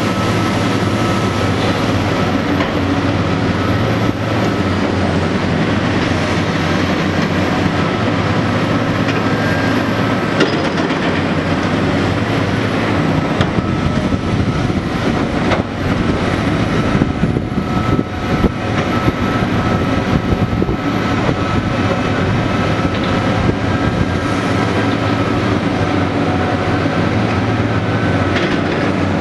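Heavy diesel excavators running and digging: a steady low engine drone with a thin high whine above it and a few sharp clanks.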